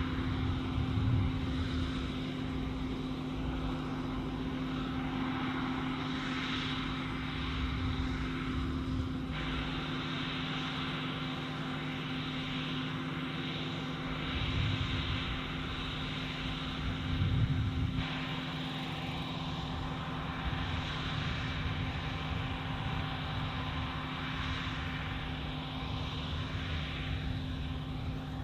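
John Deere W540 combine harvester running steadily under load: a constant engine drone with a steady low hum and the rushing noise of the machinery. The sound changes abruptly about nine seconds in and again near eighteen seconds.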